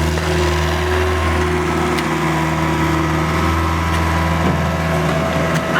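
Engine of construction machinery running steadily at a constant speed, with a couple of faint knocks.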